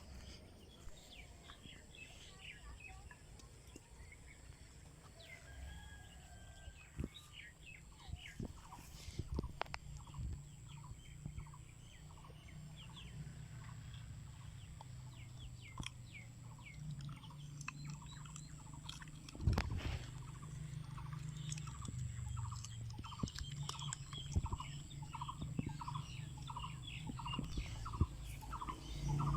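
Birds calling: scattered short chirps, then a run of evenly repeated calls about two a second near the end, over a steady low hum.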